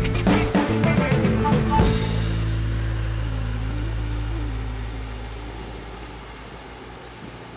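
Background music with a drum beat that stops about two seconds in, leaving a held low note and a wavering tone that slowly fade out.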